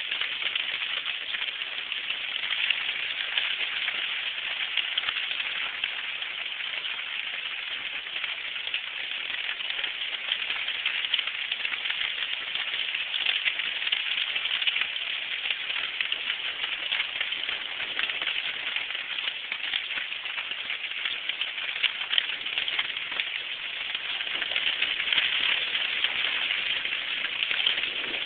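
Heavy rain of a thunderstorm falling steadily, a constant hiss that swells slightly near the end.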